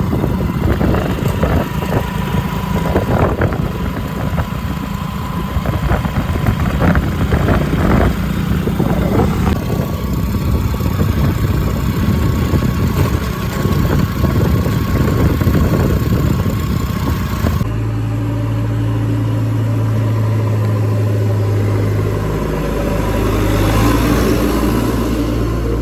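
Diesel engine of a JCB 3DX Eco backhoe loader running under work, with scattered knocks and clanks. About 18 seconds in, it changes abruptly to a steadier, deeper engine hum.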